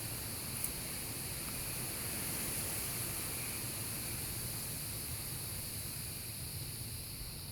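Steady background hiss with one faint click just after the start; no drilling strokes are heard.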